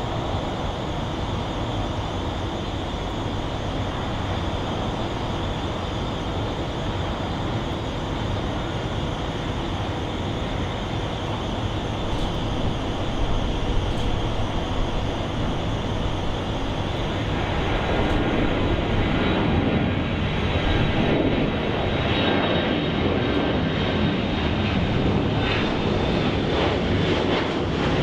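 Boeing 737's twin jet engines at takeoff power, a steady roar through the takeoff roll and climb-out. The roar grows louder past the halfway point as the jet climbs close by, with a high engine whine in the last seconds.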